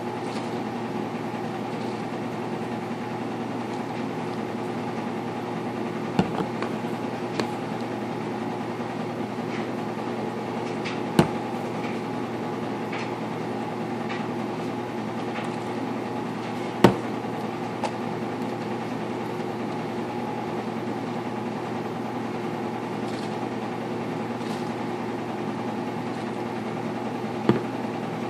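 Washing machine running with a steady hum, broken by a few sharp knocks as plastic baby bottles are handled and set down on a countertop.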